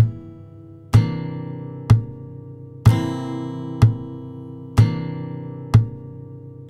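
Acoustic guitar music: a chord strummed about once a second and left to ring and fade before the next.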